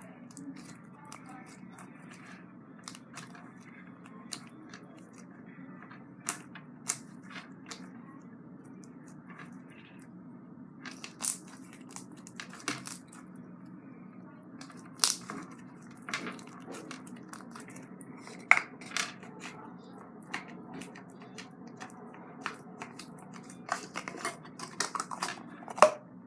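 Pink floam slime being squeezed and handled, its foam beads giving scattered sharp crackles and pops, more frequent in the second half, over a steady low background hum.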